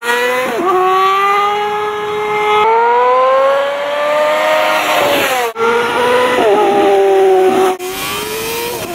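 High-revving sport bike engine accelerating hard, its pitch climbing and then dropping suddenly at gear changes. The sound is cut into short clips that change abruptly three times.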